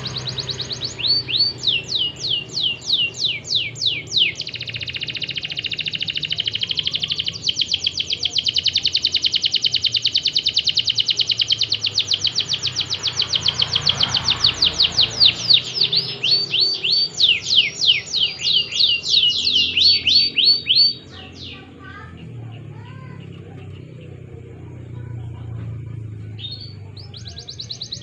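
Domestic canary singing continuously in fast runs of repeated high, falling notes and rapid trills. The song breaks off about three-quarters of the way through and starts again near the end.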